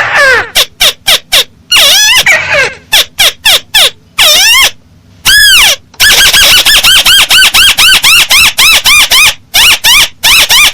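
Calls of the burung tikusan sawah, a paddy-field crake. It starts with a loose run of sharp falling and arching notes. After a short pause about five seconds in comes one longer arched note, then a fast, even series of arched notes at about six a second.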